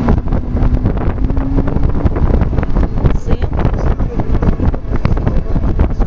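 Heavy wind buffeting the microphone, with a faint steady hum in the first two seconds.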